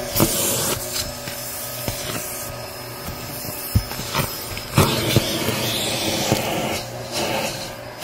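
Bissell Helix vacuum running steadily, its crevice tool sucking wood chips and splinters off car carpet. Sharp clicks and rattles come several times as pieces are pulled into the tube, and the suction hiss grows fuller about five seconds in.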